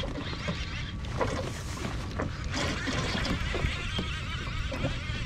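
Wind rumbling on the microphone over water lapping at a kayak's hull, with scattered small clicks and knocks as a fishing rod is pulled from its holder and a fish is hooked.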